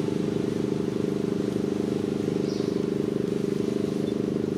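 A steady engine hum idling with an even pulse and no change in pitch, plus a brief faint high chirp about halfway through.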